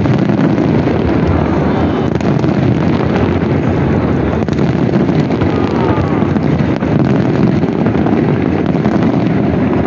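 A dense barrage of aerial fireworks shells bursting, many bursts packed close together into a continuous loud din with no break.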